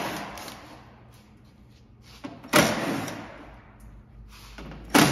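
Cordless power tool running in short bursts on the 10 mm skid plate bolts: sudden, loud bursts about two and a half seconds apart, each starting sharply and fading over about a second.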